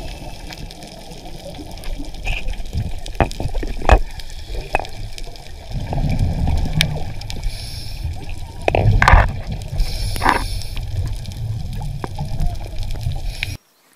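Underwater sound picked up by a diver's camera: a steady low rumble of water moving against the camera, with gurgling and scattered clicks. It cuts off suddenly near the end.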